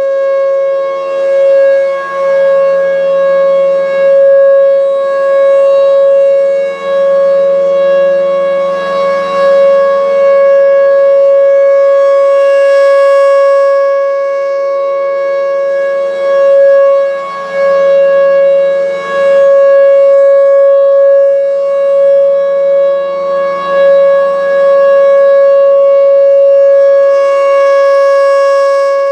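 Federal Signal Thunderbolt 1003 rotating siren sounding a loud, steady tone with many overtones. It swells and fades every few seconds as the turning horn sweeps toward and away from the listener.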